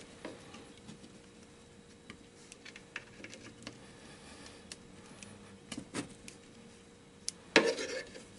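A hand screwdriver clicking and scraping against the inside of a large PVC pipe as screws are worked in, with a louder knock near the end.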